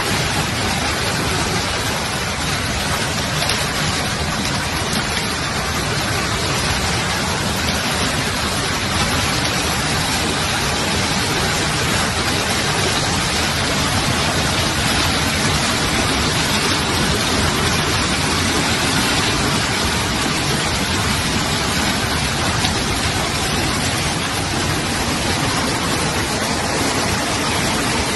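Heavy rain and hail coming down hard, a dense steady hiss that holds without let-up.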